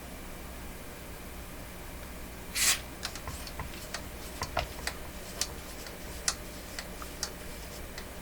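Light, irregular clicks and taps from handling at an electronics workbench, over a steady low electrical hum. A short scrape comes about two and a half seconds in, then a quick run of clicks.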